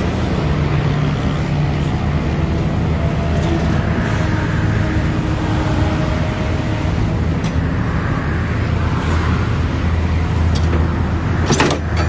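Kobelco crawler excavator's diesel engine running steadily under hydraulic load as the machine pushes down on its bucket to lift its tracks and lowers itself back, with a sharp knock shortly before the end.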